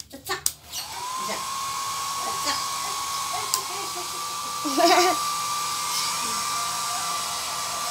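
Hand-held hair dryer switched on about a second in, its pitch settling into a steady whine and blowing noise. A brief voice is heard about five seconds in.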